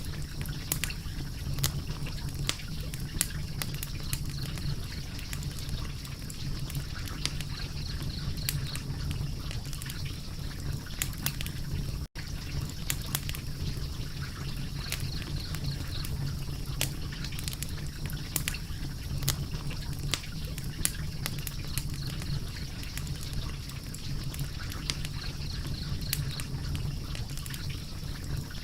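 Fire crackling, with irregular sharp snaps and pops over a steady low rumble and hiss. The sound drops out for a split second about twelve seconds in.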